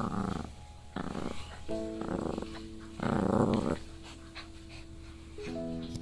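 Morkie (Yorkie–Maltese mix) puppy growling in four short bursts, the loudest a little after three seconds in: play growls while tugging on a rope toy.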